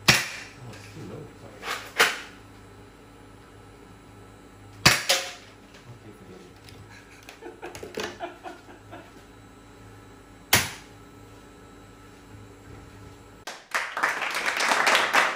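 Spring-powered toy blaster firing at a bee: four sharp snaps spread over about ten seconds, with softer clicks of cocking and handling between them. A burst of clapping and applause comes in near the end.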